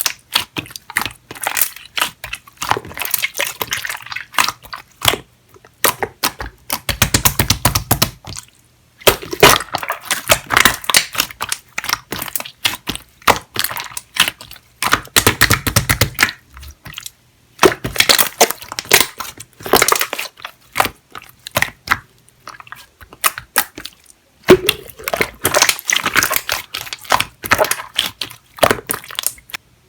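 Jelly-textured clear slime being squished and stretched by hand: dense runs of sticky clicks and pops, coming in several bursts with brief pauses between.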